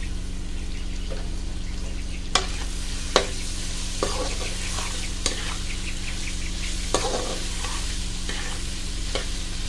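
Chicken, carrots, bell pepper and freshly added tomato sizzling in oil in a wok while a metal spatula stirs and scrapes them. The spatula clicks sharply against the pan now and then, loudest a little after two and three seconds in.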